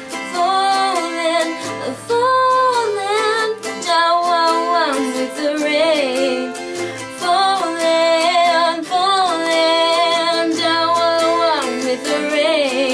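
A girl singing in long, wavering phrases over a strummed acoustic guitar.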